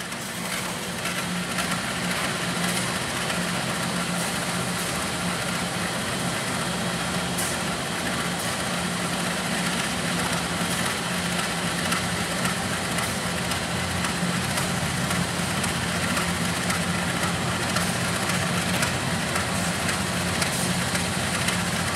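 CC203 9818 diesel-electric locomotive's engine running steadily as the locomotive pulls its train slowly away, with the crisp, crackly note that railfans prize.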